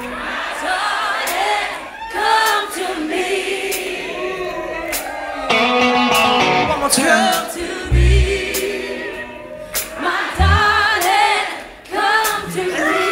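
Music: singing voices with vibrato over low bass notes.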